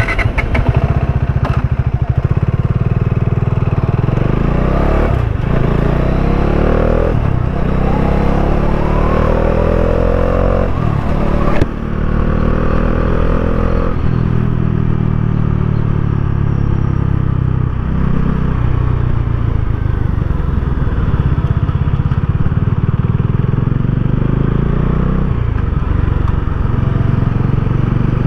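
2019 Bajaj Dominar 400's single-cylinder engine and exhaust while riding, the engine note rising through the gears with the revs dropping back at each shift, then running more steadily.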